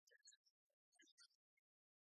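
Near silence, with a few faint, scattered ticks.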